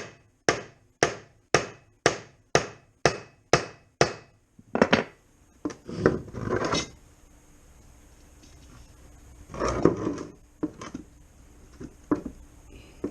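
Hammer blows on a block of wood laid against a cracked plastic motorcycle skid plate, struck to flatten the plate back into shape: nine steady strikes about two a second, then a few seconds of scraping and irregular knocks as the parts are shifted, with a louder clatter near the end.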